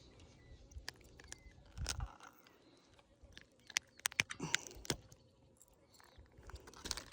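Irregular sharp clicks and knocks of fishing gear being handled aboard a kayak, with a denser cluster of louder knocks about four to five seconds in.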